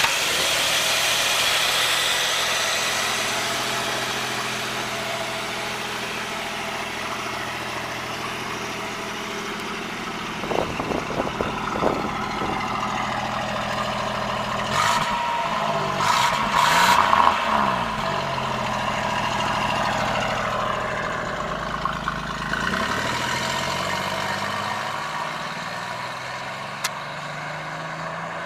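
3.0-litre fuel-injected Toyota six-cylinder engine in a restomod GAZ Volga M21 idling steadily, blipped a few times and revved up and down about halfway through, then pulling away with the engine note rising as the car accelerates off.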